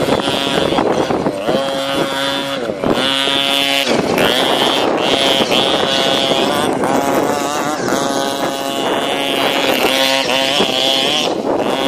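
Radio-controlled off-road buggy's small nitro engine revving, a high buzz held for a second or so at a time, then dropping off and climbing again, over and over.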